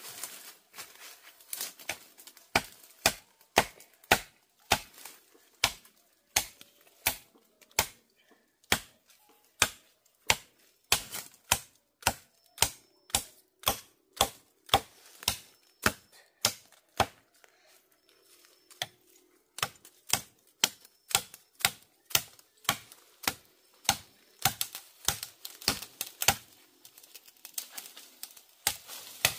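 Hand tool striking bamboo in a steady run of sharp blows, about two a second, with a brief pause past the middle.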